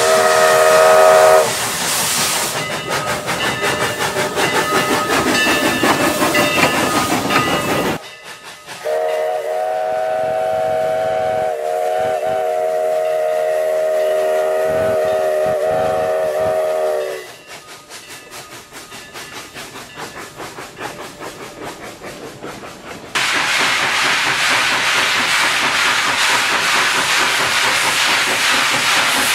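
Steam locomotive whistle sounding a chord of several notes, which stops about a second and a half in and gives way to the engine working with hissing steam. Midway the whistle sounds again in one long blast of about eight seconds. Near the end comes a loud, steady hiss of steam venting from the cylinder cocks.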